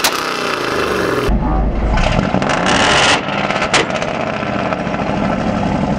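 Ford Mustang V8 revving through a Borla exhaust, with sharp exhaust pops: one bang right at the start, a burst of revs about two and a half seconds in, and another pop a little before the four-second mark, the engine running between them.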